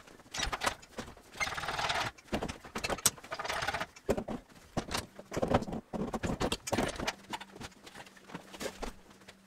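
Knocks, clunks and squeaks as a Volvo six-cylinder engine with its M90 gearbox is hoisted out of a car's engine bay on straps, with metal scraping and bumping as it comes free. A faint steady hum comes in about halfway.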